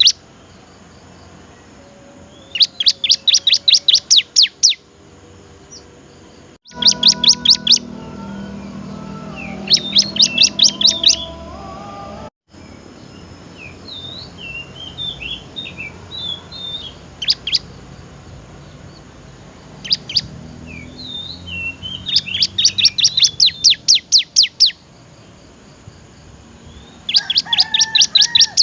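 Ciblek (bar-winged prinia) singing: repeated bursts of rapid, sharp, high chirps, about ten a second, each burst lasting a second or two, with softer scattered twittering between bursts in the middle. The recording drops out briefly twice, at edit points.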